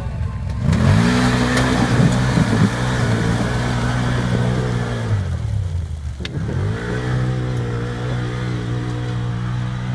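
Can-Am Maverick side-by-side's V-twin engine revving hard as it powers through a mud hole, held at high revs with the hiss of tyres throwing mud and water. Revs drop about six seconds in, climb again and hold, then ease off near the end.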